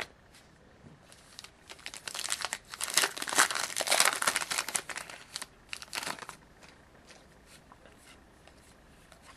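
A foil wrapper of a hockey trading-card pack torn open and crinkled by hand for about four seconds, loudest in the middle. A few faint ticks of cards being handled follow.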